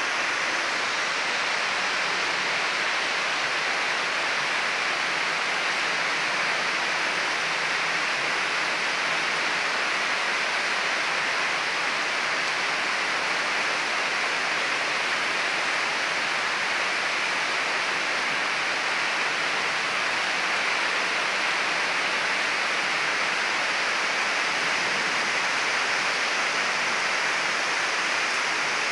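Heavy monsoon rain pouring steadily onto trees and a lawn: a dense, even hiss that never lets up.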